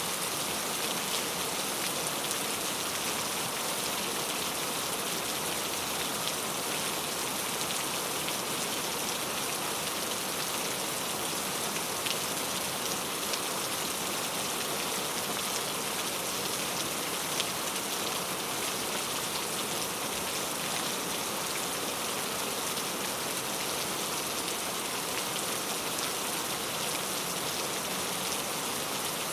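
Heavy rain falling steadily, a dense even hiss with scattered individual drop hits.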